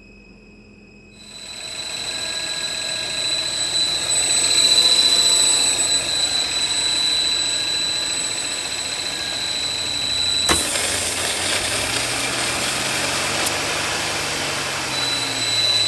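Audi 1.8 TFSI engine running with a loud, steady high-pitched whistle over it, the 'jet engine sound' the owner puts down to a bad PCV valve. About ten seconds in there is a sharp click and the strongest whistle tone drops out until near the end, while a low engine note rises and falls.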